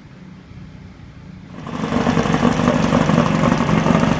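Off-road race vehicle engine running low and steady, then suddenly much louder about a second and a half in.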